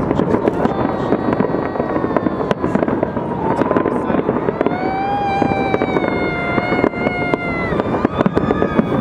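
Fireworks salute, shells bursting in a dense, continuous crackle of pops and bangs. About halfway through a long, high held tone joins for several seconds, then stops.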